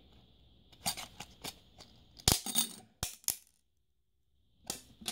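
Plastic clicks and snaps from a MiniDisc cartridge's shell being pried apart and its two halves pulled open: a run of sharp clicks, the loudest a little past two seconds in.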